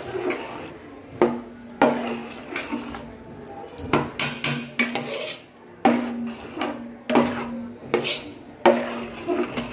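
A metal ladle stirring thick chickpea gravy in a large metal cooking pot, with wet scraping between strokes. About seven times the ladle knocks against the pot's side, and each knock leaves a brief ringing tone.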